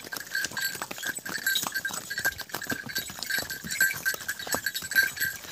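Ponies' hooves clopping irregularly on a stony path at a walk.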